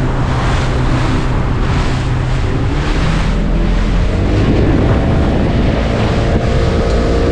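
Motorboat engine running steadily underway, with the hull slapping through choppy waves in swells of spray about once a second and wind buffeting the microphone.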